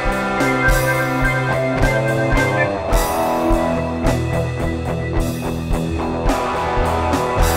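Instrumental improvised rock jam: guitar and keyboard over a drum kit keeping a steady beat. The chord changes about three seconds in.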